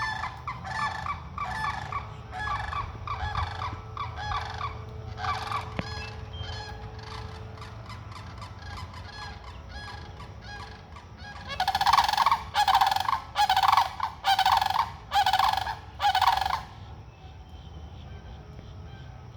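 Sandhill cranes calling: a run of repeated rattling calls about twice a second, fading for a few seconds, then a louder series of about six calls in the second half before they stop.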